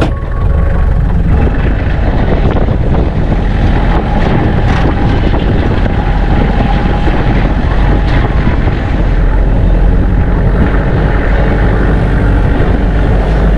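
Loud, steady rumble of a moving vehicle with wind buffeting the microphone, heard from on board.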